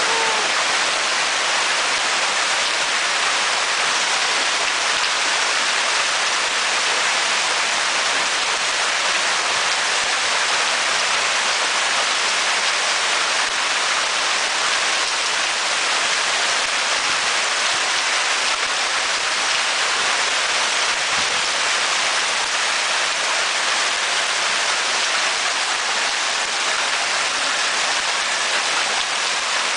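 Hailstorm: hail pelting down steadily, a dense, even hiss of hailstones striking roofs and ground.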